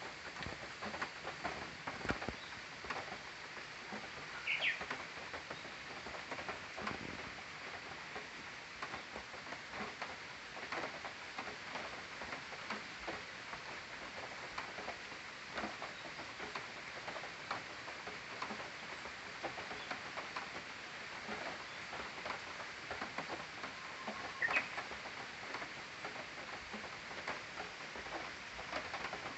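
Japanese bush warbler (uguisu) singing twice, about 4 s in and near the end, the second song a faint held note followed by a quick higher flourish. Many scattered light clicks and ticks run on throughout.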